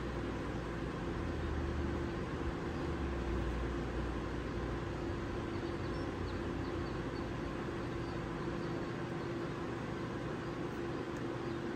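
Steady drone of RV air conditioners running on high fan, with a constant hum tone; a low rumble underneath eases off about halfway through.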